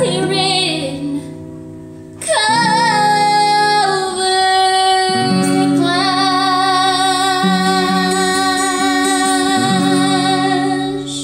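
A woman singing a ballad in long held notes with vibrato, over guitar accompaniment.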